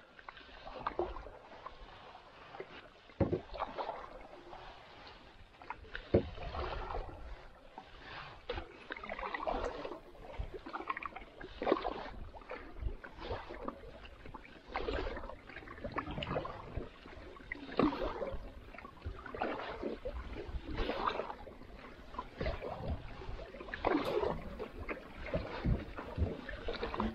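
Canoe paddle strokes in calm water, one about every three seconds, each a swish and splash of the blade with trickling drips. Some strokes start with a sharp light knock.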